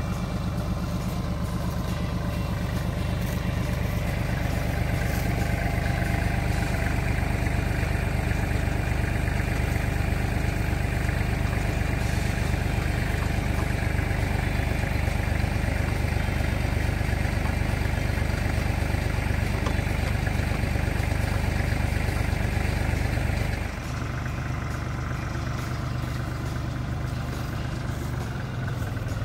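Kubota KL340 tractor's diesel engine running steadily under load, its note dropping to a lower, quieter run about 24 seconds in.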